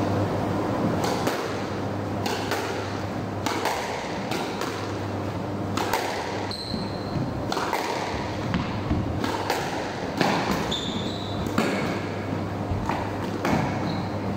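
Squash rally: the rubber ball cracking off rackets and smacking against the court walls, a string of sharp knocks every half second to a second, with reverberation from the enclosed court. A few short squeaks of shoes on the wooden floor and a steady low hum run underneath.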